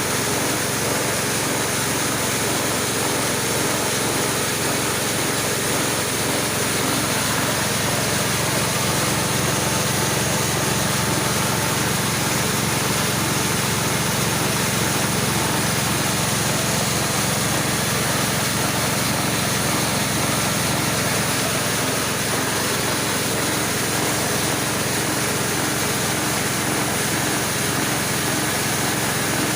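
Engine-driven corn grinding mill running steadily, a continuous motor-and-machine noise that holds at a constant pitch and level.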